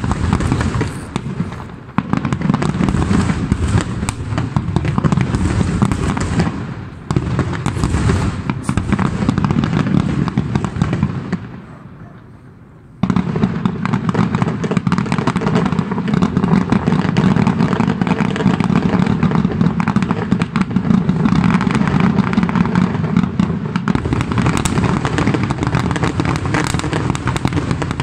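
Fireworks display going off in a dense, continuous barrage of bangs and crackling. It thins out about eleven seconds in, then resumes abruptly about a second and a half later.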